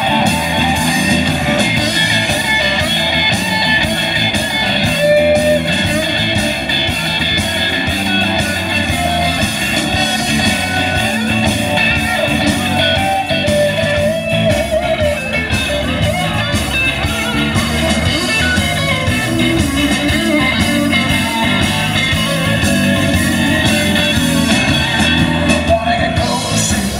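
Live roots band playing an instrumental passage led by electric guitar, over bass guitar and drums.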